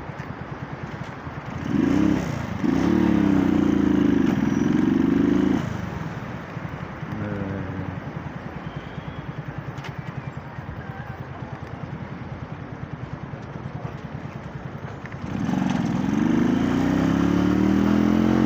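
125 cc motorcycle engine in traffic, ticking over with an even putter between two bursts of acceleration. The revs rise about two seconds in, dip briefly as if for a gear change, then drop back. They climb again near the end.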